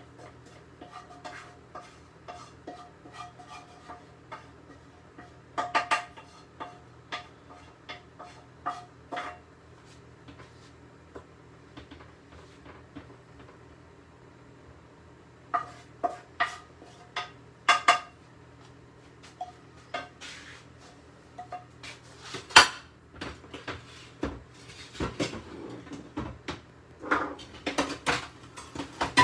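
Frying pan and cooking utensil clinking, knocking and scraping as food is scraped out of the pan onto a plate. Many separate knocks, some ringing briefly, with louder hits in the second half.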